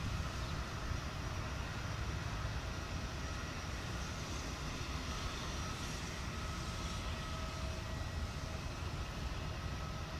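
Airbus A400M's four turboprop engines running as the transport rolls along the runway after landing: a steady drone with a low hum and a faint whine.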